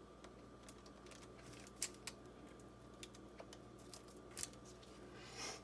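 Quiet room with a faint steady hum and about half a dozen small, scattered clicks and ticks as choux pastry dough is squeezed from a pastry bag onto a parchment-lined sheet pan.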